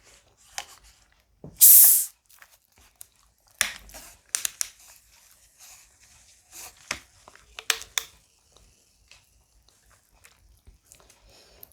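Close-up mouth sounds of someone eating a banana: wet smacks and clicks, with one short, loud hiss about two seconds in.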